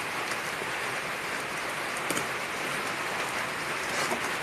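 Steady hiss of rain falling, with a few faint clicks.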